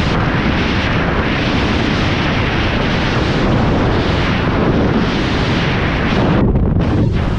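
Freefall wind blasting across a skydiver's camera microphone: a loud, steady rush. The hiss thins briefly twice near the end.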